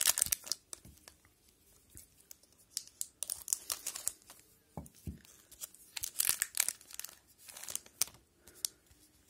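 An O-Pee-Chee hockey card pack wrapper being torn open and crinkled by hand, in irregular bursts of crackling with short pauses, as the cards are pulled out.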